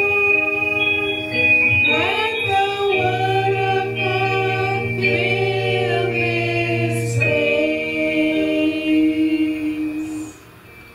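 Slow worship song sung by several voices in long held notes, ending about ten seconds in.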